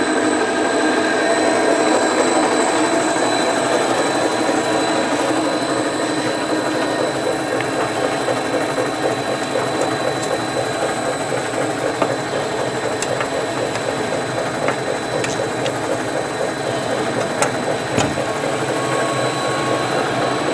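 Scott stainless steel paddle-and-ribbon mixer running under its electric drive, its paddle shaft turning with a steady mechanical hum and a constant high whine. A few faint ticks come near the end.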